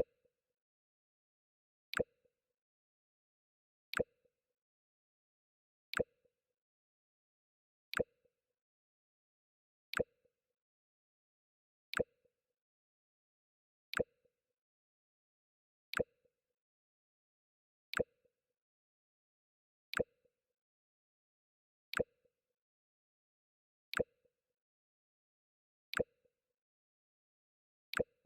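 Mac OS X 'Jump' sound effect played on a loop: a very short, sharp click with a faint blip after it, repeating evenly every two seconds.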